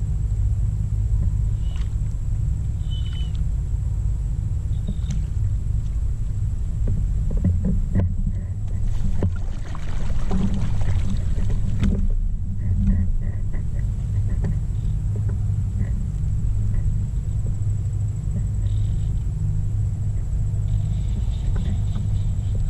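Steady low rumble of wind buffeting a GoPro's microphone, with a high faint whine from the camera. A louder stretch of splashing water comes about eight to twelve seconds in.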